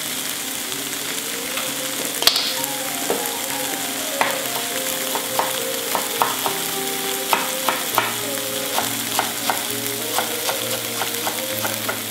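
Tomato and onion sauce sizzling steadily in a frying pan, with a chef's knife chopping fresh herbs on a wooden board in quick, uneven taps that come more often from a few seconds in. There is a single sharp click about two seconds in.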